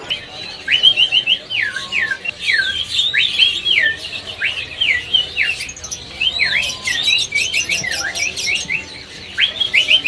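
Caged songbird singing in full voice ("ngeplong"): a varied run of clear whistled notes that slide up and down, one after another, with a pause near the end. Many short, high chirps of other birds sound behind it.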